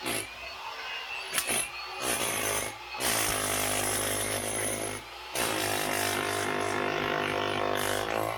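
Electric power tool running in bursts that start and stop several times, with a short blip about a second and a half in and the longest runs in the second half.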